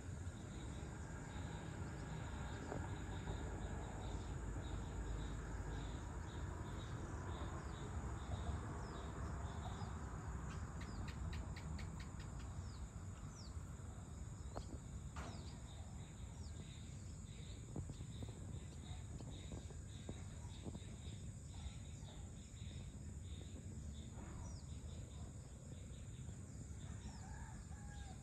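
Evening ambience: a steady chorus of crickets and other insects over a low rumble, with scattered bird calls, including a quick run of chirps about ten seconds in.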